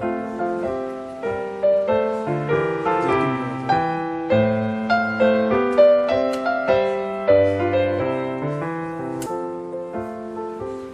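Background piano music: a gentle melody of notes struck about twice a second over a steady bass line.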